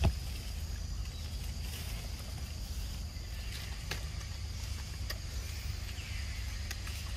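Steady high insect drone over a constant low rumble, with one sharp thump right at the start and a few faint clicks.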